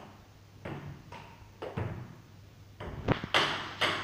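Table tennis rally: a ping-pong ball clicking sharply off the new GKI Offensive XX racket and the table top, a few hits a second at an uneven pace, louder near the end.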